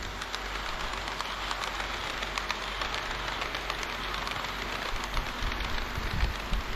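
HO-scale model train running on layout track: a steady rattling rush of wheels and motor, with many fine clicks.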